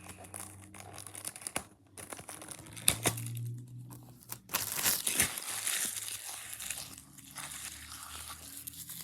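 Plastic packaging on a DVD crinkling and tearing as it is unwrapped, in irregular rustles with a few sharp crackles and a louder stretch about halfway through.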